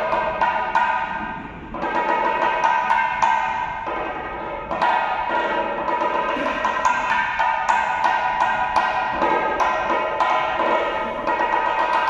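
Music: sharp, wooden-sounding percussion strikes several times a second over a sustained ringing tone.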